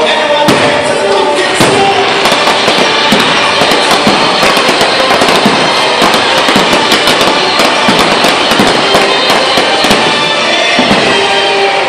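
A fireworks display going off in quick succession, many sharp bangs close together, over the show's music soundtrack.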